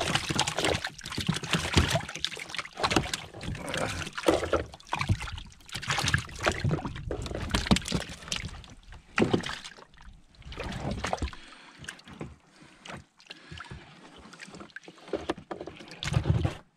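Handling noise on a small plastic pedal boat: irregular knocks, bumps and rustles as a small trout is unhooked and laid in the footwell.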